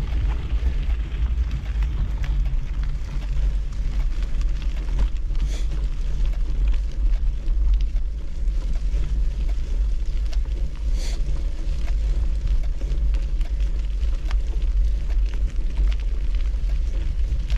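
Wind buffeting the microphone over the steady rumble of a mountain bike's tyres rolling on a dirt trail, with two brief high-pitched sounds about five and eleven seconds in.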